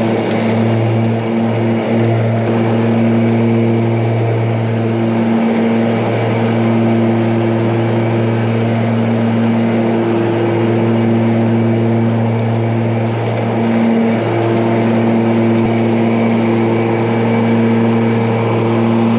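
Ryobi 80-volt battery-powered zero-turn riding mower running with its mulching blades spinning as it drives over leaves: a steady electric hum made of a low drone and several higher steady tones, with a light rushing noise underneath.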